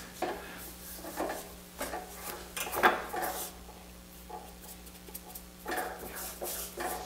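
Scattered light clicks and knocks as a wooden hand wheel is handled against the metal spindle of a wood lathe's headstock, over a steady low hum.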